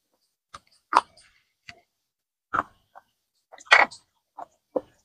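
A person biting and chewing pieces of dry baked clay pot, heard as a series of separate sharp crunches, the loudest a little before four seconds in.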